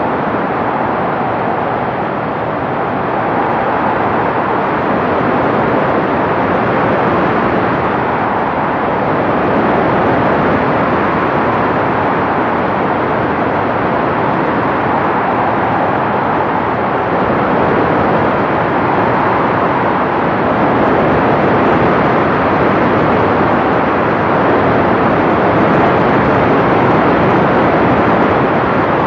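Cessna 182P Skylane in flight on approach: a steady rush of airflow and engine noise, growing a little louder toward the end.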